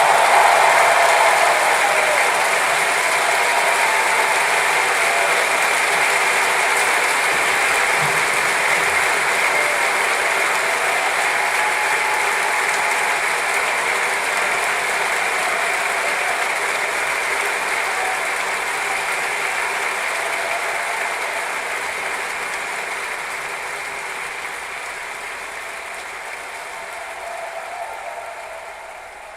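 Audience applause: a dense, steady clapping that slowly fades away over the last several seconds.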